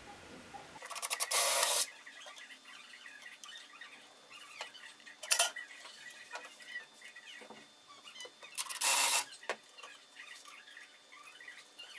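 Cordless drill-driver running in three short bursts while driving screws at a cabinet door's hinges: the first about a second long, a brief one midway and a half-second one near the end, with small handling clicks between.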